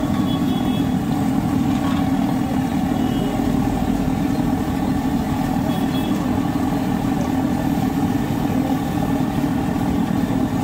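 Steady low rumble, with a faint hiss above it from bread pakoras deep-frying in a kadai of oil.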